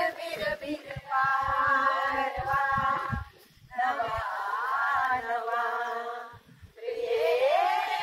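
A group of women singing together without instruments, in long held phrases with two short breaks.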